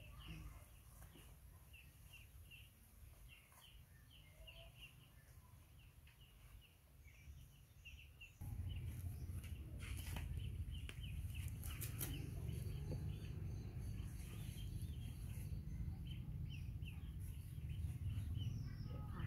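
Garden ambience of small birds chirping in quick short notes, over a low rumble that gets suddenly louder about eight seconds in. A few sharp crackles come near the middle.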